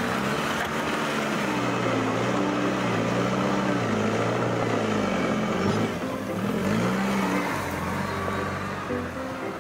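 Dubbed-in engine sound effect for a toy wheel loader: a low motor running steadily, its pitch dipping and rising about six to seven seconds in.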